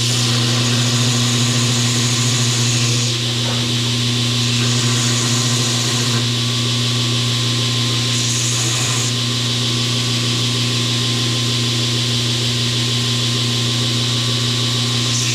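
Electric power tool motor running steadily with a strong hum, with a higher grinding hiss that comes and goes several times as metal is worked against it.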